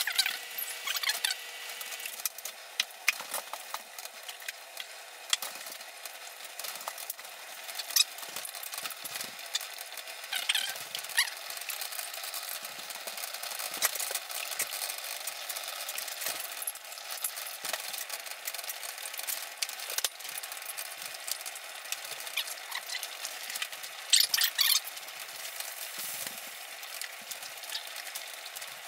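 Saucepans of water and oil-and-beeswax mixture boiling on an electric stovetop: a steady hiss with many small pops and ticks of bubbling, and louder sputtering twice, about ten seconds in and near the end.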